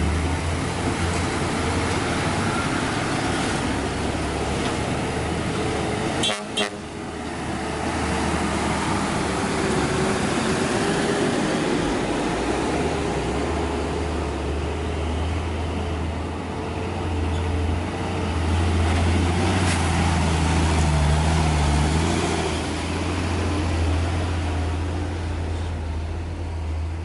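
Heavy diesel dump trucks driving past on a dirt haul road: a deep, steady engine drone, loudest about two-thirds of the way through, with a brief sharp break about six seconds in.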